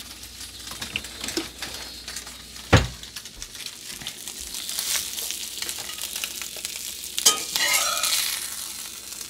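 Meatloaf sizzling in a frying pan on the stove, a steady high hiss. A single sharp knock comes a little before three seconds in, and a click with some scraping near the end.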